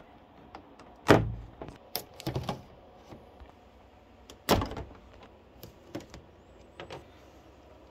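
Stiff clear plastic packaging cracking and snapping as a knife cuts along its seams and the panels are pried apart: two loud sharp cracks, about a second in and about four and a half seconds in, with smaller clicks and crinkles between and after.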